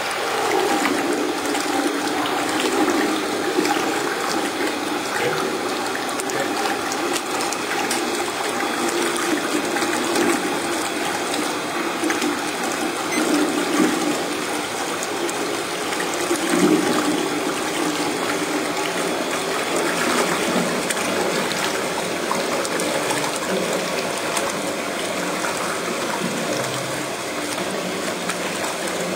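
Quadro Ytron Jet Mixer running in a tank of water: a steady churning, rushing water sound from the rotor-stator head as granulated sugar is poured in to dissolve.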